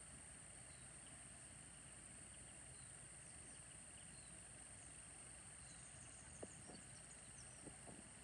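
Near silence: a faint steady hiss with a thin high-pitched tone running through it, and a few soft clicks near the end.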